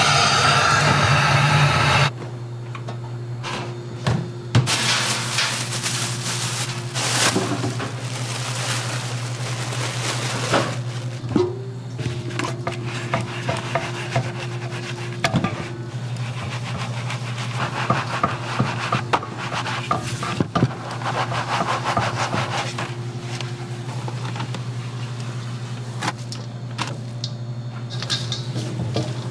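A loud hiss for about the first two seconds, then gloved hands rubbing rice flour through a wooden-framed mesh sieve and tossing it in a steel bowl, making long stretches of rubbing and scraping over a steady low hum.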